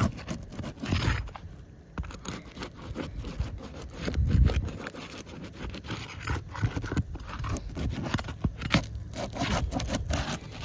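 Prying tool working under asphalt roof shingles: a run of scraping and short clicks as the sealed tabs are worked loose, with a low rumble about four seconds in.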